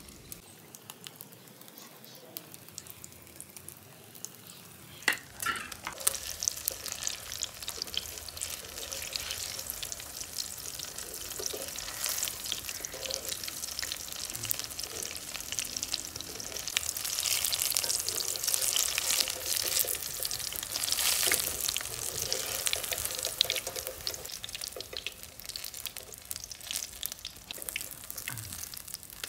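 Potato-and-onion pakoras deep-frying in hot oil in an iron kadai: a dense crackling sizzle that swells after a sharp knock about five seconds in, is loudest in the middle, and eases a little near the end.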